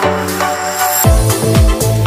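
Electronic background music with sustained synth tones. About a second in, a steady kick-drum beat comes in.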